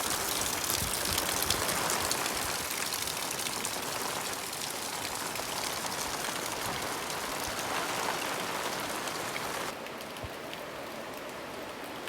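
Steady rain falling, with a dense hiss dotted with many small drop impacts. Near the end the sound drops suddenly to a quieter, duller hiss.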